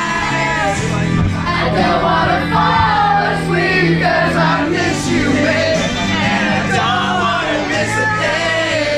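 A song with a sung vocal over sustained bass notes.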